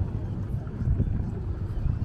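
Wind buffeting the microphone over the low rumble of a boat under way.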